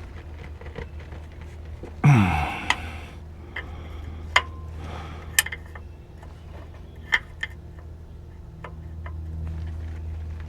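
Scattered sharp metallic clicks of a wrench working on the power steering hose fitting as it is tightened, over a steady low hum. A short loud burst with a falling pitch comes about two seconds in.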